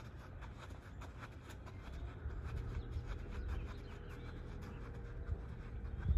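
Wind rumbling on the microphone outdoors, uneven and gusty, with faint scattered clicks and a low thump right at the end.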